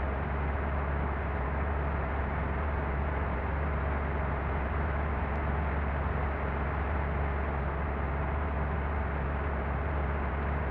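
Steady running noise of a moving road vehicle: a constant low engine hum under even road and wind noise, with no change in speed.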